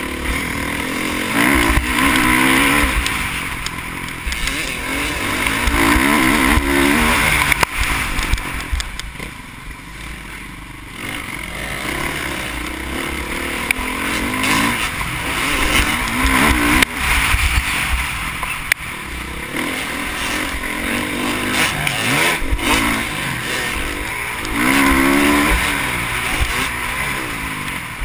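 Motocross bike engine heard from the bike itself, revving up in repeated rising sweeps and dropping back as it accelerates and backs off around the track, with wind rumbling on the microphone. It eases off around ten seconds in, then picks up again.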